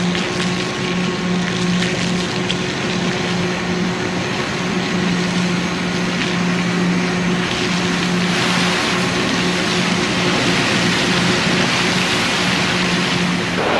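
Steady drone of drilling-rig machinery with a constant low hum. About eight seconds in, a louder hiss of water spraying from a hose joins it as the deck is washed down.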